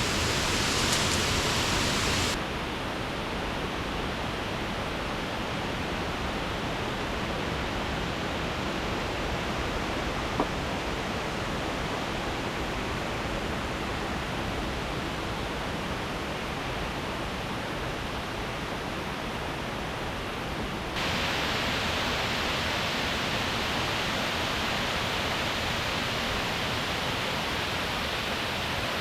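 Steady rush of falling water from a waterfall. The sound turns duller about two seconds in and hissier again about three-quarters of the way through. There is one faint tap near the middle.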